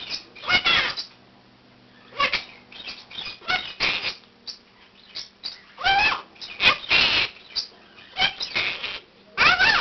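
Quaker (monk) parakeet calling: a string of short, loud squawks and chirps at irregular intervals, several sliding up and down in pitch.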